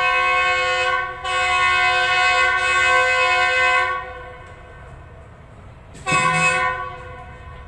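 Diesel locomotive horn of an approaching train, likely its GEU-40 locomotive: a long blast broken by a brief gap about a second in, ending about four seconds in, then one short toot about six seconds in. A low rumble from the train runs underneath.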